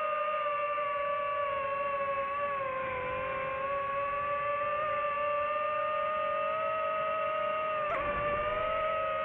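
DJI FPV drone's motors and propellers running in flight, a steady single pitch with overtones that sags slightly about three seconds in and wavers briefly near the end.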